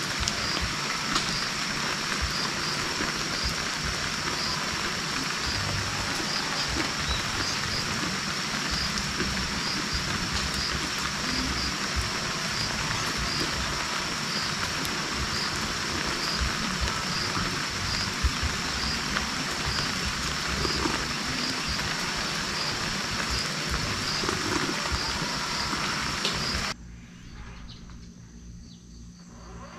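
Steady hiss of light rain falling, with a high, steady insect trill over it; the sound drops to a much quieter ambience near the end.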